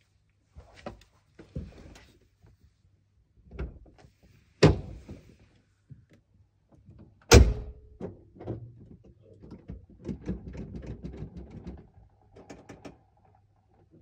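A car door opening and shutting with heavy thunks, the loudest about seven seconds in and another about four and a half seconds in, with smaller knocks and rustling between and after. The engine is not yet running.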